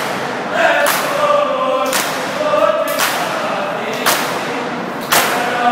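Men's voices chanting a noha together, with loud, sharp slaps of hands on bare chests in unison about once a second: matam, Shia mourning chest-beating.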